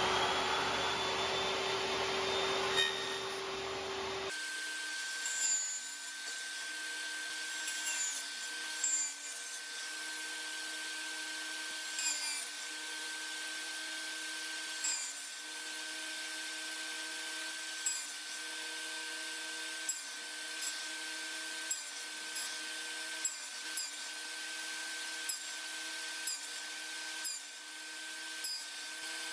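Table saw starting up, then running steadily with a high whine while its blade makes repeated short cuts into the end of a red oak board, nibbling out a row of notches.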